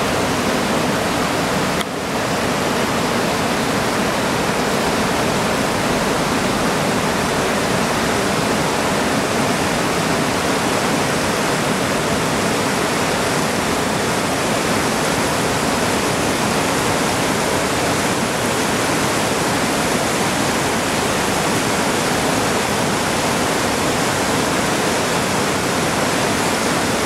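Whitewater rapids of the Yellowstone River rushing over rocks, a steady, unbroken rush of water.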